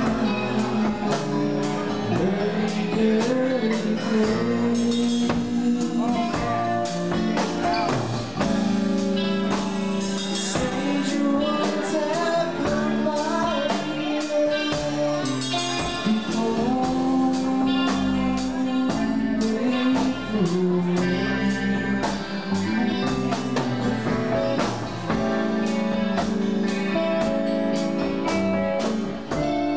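Live rock band playing a slow ballad: electric guitars, bass, keyboards and drums with steady cymbal strokes, and a voice singing over them.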